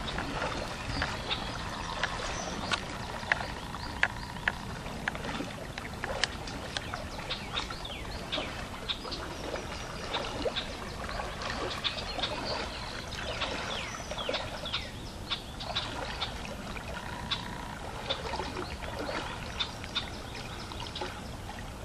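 Shallow river water sloshing and splashing around a person's legs as he wades across, with irregular sharp splashes from his steps.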